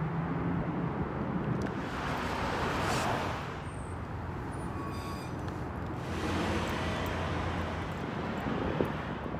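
Outdoor background noise: a low rumble of road traffic that swells twice, like vehicles passing.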